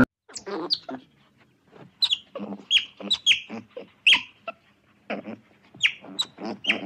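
Otter chirping: a quick, irregular run of more than a dozen short, high squeaks, each dropping steeply in pitch.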